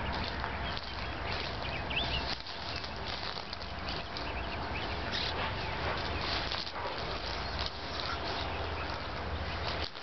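Outdoor ambience: small birds chirping a few times, with scattered crackles of footsteps through dry grass over a low steady rumble.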